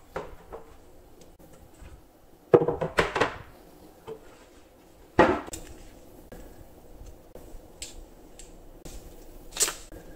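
Wooden cabinet panels handled on a tiled floor: a clatter of several knocks about two and a half seconds in, a single knock about five seconds in, and a shorter sharp click near the end.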